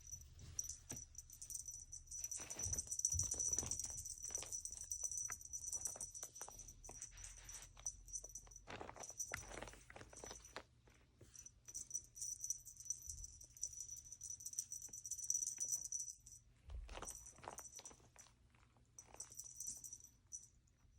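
A small jingle bell on a cat toy jingling almost continuously as a kitten bats and chases it, with scattered light knocks. The jingling breaks off briefly a few times.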